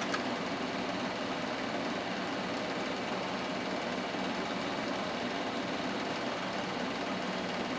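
Gateway 2000 P5-133 XL desktop computer running, a steady whirring hum of its cooling fans and drives while the driver installation finishes.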